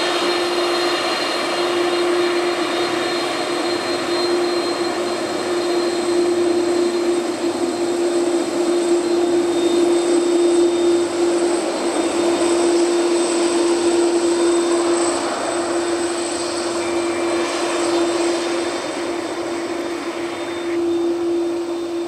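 Airbus Beluga's twin turbofan engines running with a steady whine: a constant hum and high whistling tones over a broad rush, growing a little louder midway and easing off near the end.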